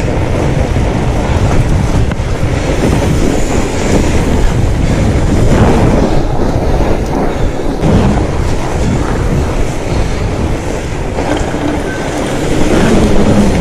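Riding noise from a fat bike on a packed-snow trail, picked up by a handlebar-mounted camera: a loud, steady low rumble of wind and vibration with a few brief knocks from bumps.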